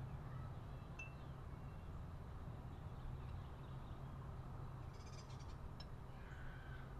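Steady low background hum with a few faint high chirps, likely birds, and a brief cluster of light clicks a little after five seconds.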